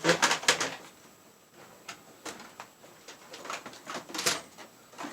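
Computer cables and a plastic KVM switch being tugged and handled while a snagged cable is worked free. A quick run of clattering knocks comes first, then scattered single clicks and scrapes.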